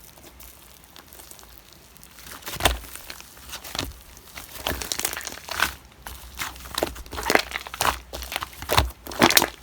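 Slime being kneaded and pressed by hand, giving irregular sticky crackles and popping snaps, which begin about two seconds in.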